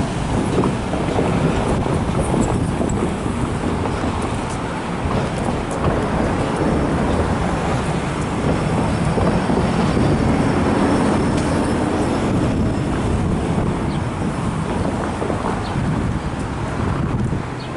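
A loaded CSX freight train rolling past close by: a steady, loud rumble of railcars and wheels on the rails.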